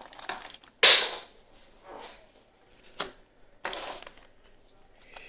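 Clear plastic zip-lock bags crinkling and rustling as they are handled, in several separate bursts, the loudest and sharpest about a second in.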